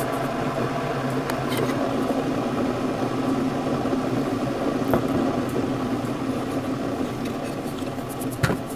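An old Keurig single-cup coffee maker running with a steady whirring hum, a click about five seconds in and a sharp knock near the end. These are the weird start-up noises of a seven-year-old machine that is slow to warm up.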